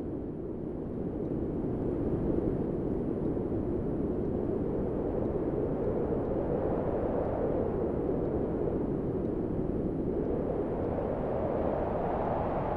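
Strong wind blowing in a continuous low rush, with slow gusts that swell about 2 seconds in, around 7 seconds and again near the end.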